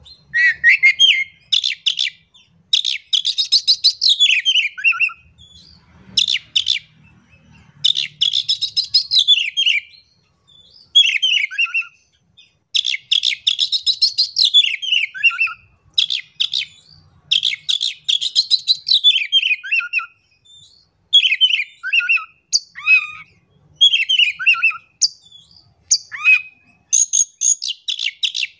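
Caged Oriental magpie-robin (kacer) singing loudly in quick succession: phrases of fast rattling trills, many ending in a falling whistle, one every second or two.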